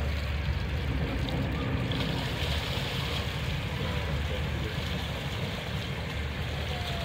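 Workboat's diesel engine running at low speed as the boat manoeuvres, a steady low rumble under a noisy wash of water and air.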